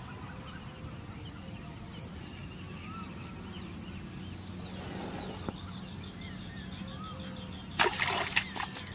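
Faint bird calls over a steady outdoor background, then, about a second before the end, a brief loud burst of splashing water.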